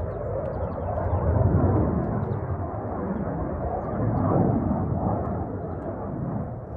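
RAAF F-35A Lightning II's afterburning turbofan engine rumbling out of sight overhead during a display, swelling louder about a second and a half in and again near the middle.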